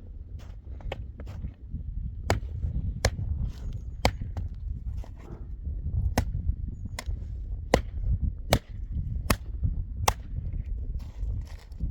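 A series of sharp, crisp knocks, sparse at first and then falling into a steady beat of about one every 0.8 seconds, over a low steady rumble.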